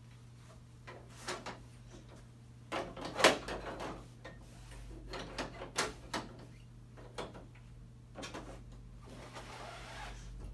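Several sharp clacks and knocks, the loudest about three seconds in, as the fabric output basket of a Canon imagePROGRAF 4100 printer is handled and its rods set in place, with a softer cloth rustle near the end.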